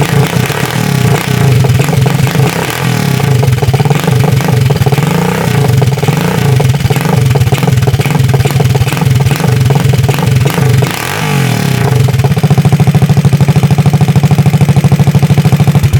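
Straight-piped 163FML single-cylinder engine of a CG200-type motorcycle running loud, its revs rising and falling with the throttle, then climbing about eleven seconds in and held steady for the last few seconds.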